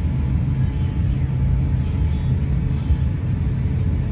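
Cabin noise inside an Airbus A350-900 taxiing: a steady low rumble from its Rolls-Royce Trent XWB engines at low thrust and the wheels rolling on the taxiway, with a faint steady hum above it.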